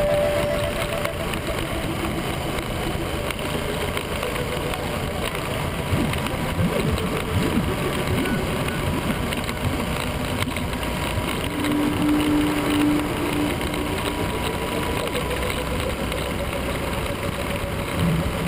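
Motorcycle engine running at road speed, heard from the bike itself over a constant rush of wind and road noise. The engine note climbs gently about two-thirds of the way through.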